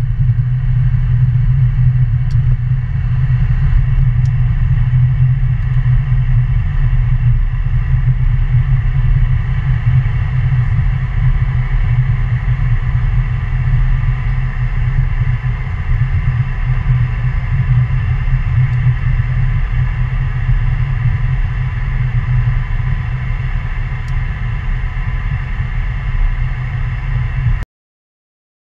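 Cessna Citation jet's engines running steadily, a low rumble under a steady high whine, then cutting off suddenly near the end.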